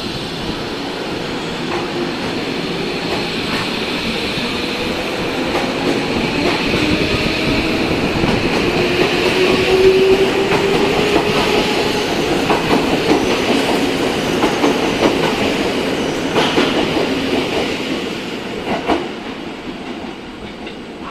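Tokyo Metro 13000 series electric train pulling away from the platform as it departs. Its traction motor whine slowly rises in pitch and the wheels clack over the rail joints. The sound grows loudest about ten seconds in, then recedes.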